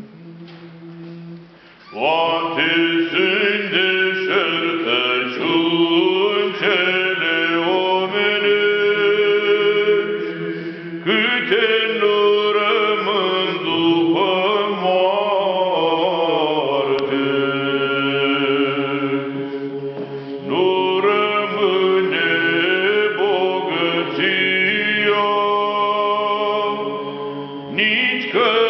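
Unaccompanied Orthodox funeral chant sung by men's voices, in long held notes that change pitch slowly. It comes in loudly about two seconds in, after a softer stretch.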